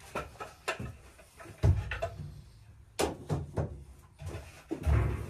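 A hammer tapping on a stainless steel sheet to work a bend into it: a series of irregular knocks, with two heavier thumps, one under two seconds in and one near the end.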